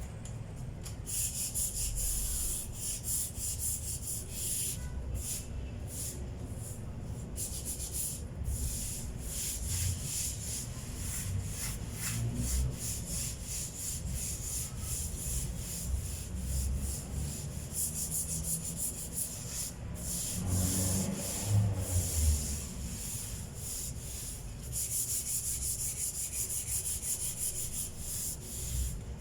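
Hand sanding a wooden tabletop with sandpaper, repeated back-and-forth scraping strokes smoothing the puttied surface. A few low thumps come about two-thirds of the way through.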